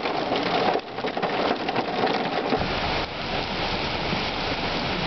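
Torrential rain: dense drops pattering on glass, turning about three seconds in into the steady, fuller hiss of a heavy downpour.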